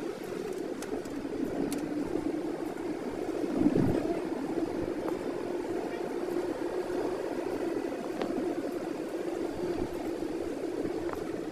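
A car driving on a rain-wet road, heard from inside the cabin: a steady running noise with a few faint clicks and a brief louder swell about four seconds in.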